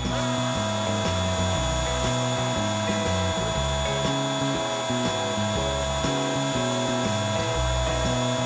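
Power sander running with a steady high whine that starts right at the beginning, over background music with a moving bass line.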